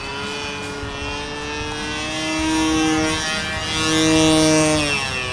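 Two-stroke glow engine (O.S. Max 46 AX) of an RC sport plane running at high throttle in flight, a steady buzzing tone that grows louder as the plane passes close overhead, loudest about four seconds in, then drops in pitch near the end.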